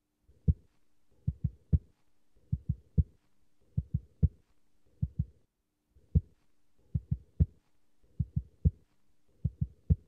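Fingertip taps on the back of a hand, picked up from inside the cupped palm, mimicking a heartbeat with a fourth heart sound (S4 gallop). The dull thuds come in groups of a close pair and then a third, repeating about every 1.2 seconds.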